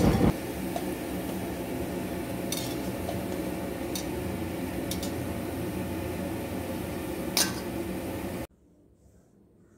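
Gulab jamun balls deep-frying in a steel kadai of hot oil, the oil sizzling steadily, with a few light clinks of a wire-mesh skimmer against the pan. The sound cuts off suddenly about a second before the end.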